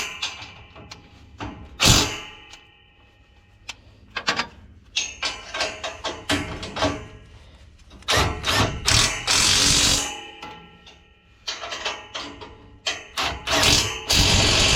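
Metal clanking and knocking of tools and combine parts, with ringing after some of the strikes, typical of concave-change work on a Case IH 7230 combine. There are two longer stretches of hissing noise, about eight seconds in and again near the end.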